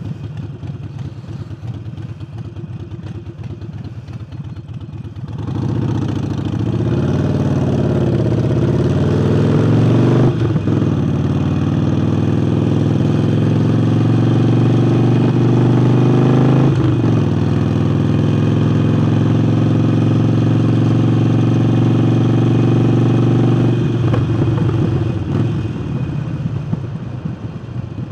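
Harley-Davidson Forty-Eight's air-cooled V-twin engine, breathing through a newly fitted air intake. It runs low at first, then opens up about five seconds in with rising revs. It shifts up twice, shown by brief breaks in the engine note, then holds a steady cruise and eases off near the end.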